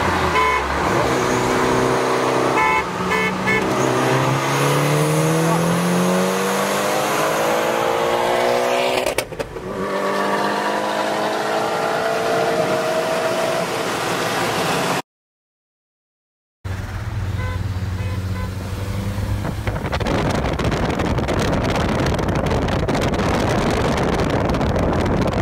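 BMW 335i's turbocharged inline-six accelerating hard, heard from inside the cabin: the engine pitch climbs steadily, dips briefly at a gear change about nine seconds in, then climbs again. It cuts off about 15 seconds in. After a short silence comes a low steady drone, then a loud, even rushing noise.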